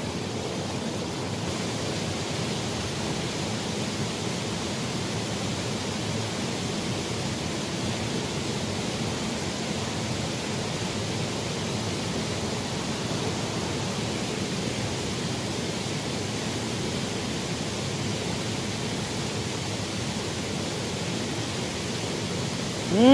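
Shallow stream water running over riffles, a steady even rushing.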